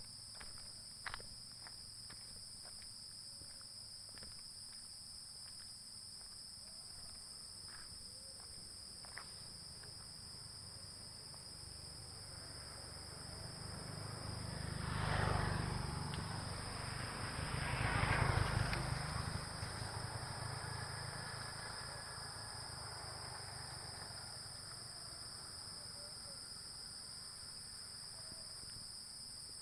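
Crickets chirring steadily in a high, unbroken chorus. Around the middle a louder rushing noise swells up, peaks twice and fades away again.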